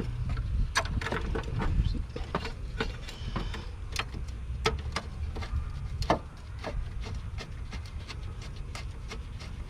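Hand tools clicking and knocking against metal during work on a car's starter: irregular sharp clicks, a few a second, over a steady low rumble.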